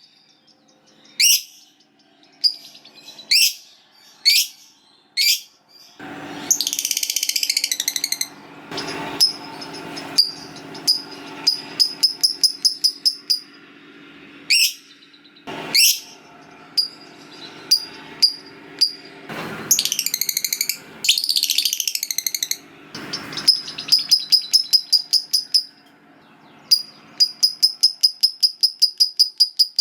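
Lovebird calls: a few sharp rising chirps, then harsh chattering passages of a second or two, and fast runs of repeated high notes, the long trill lovebird keepers call ngekek, near the start and the end.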